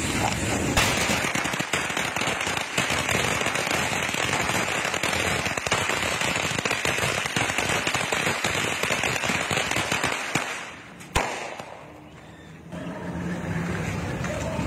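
A long string of firecrackers hung from a pole going off: a dense, rapid crackle of bangs for about ten seconds that then dies away, with one last sharp pop shortly after.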